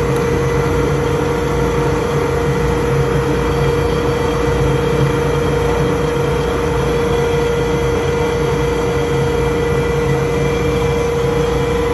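Woodworking shop machinery running steadily: a loud, constant drone with a strong steady whine and no change in load.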